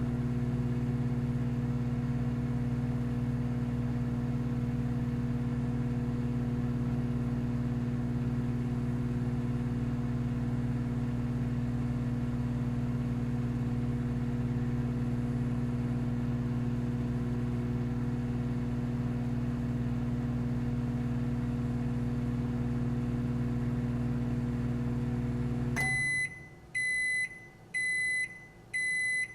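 Microwave oven running with a steady electrical hum, which cuts off suddenly near the end as the cycle finishes. It then gives four short high-pitched beeps, a little under a second apart, signalling that the heating is done.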